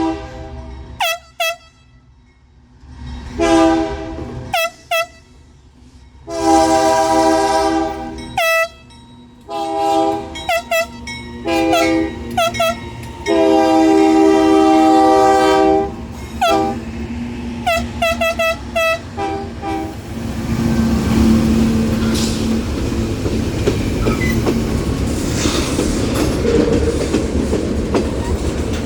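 Union Pacific diesel freight locomotive's air horn playing a horn show: a string of quick short toots mixed with several long blasts. About twenty seconds in the horn stops and the train rolls past with a steady rumble and clatter of wheels on the rails.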